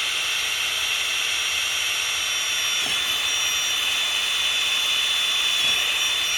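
Power drill running steadily at high speed with a constant high whine, drilling a hole in a plastic trellis tube. The pitch dips slightly a couple of times as the bit loads up.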